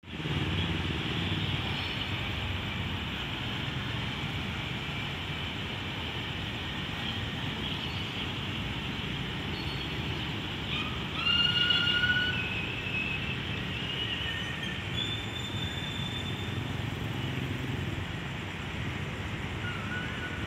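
Steady low rumble and hiss of road traffic passing beside the platform, with a brief high-pitched squeal a little past halfway through.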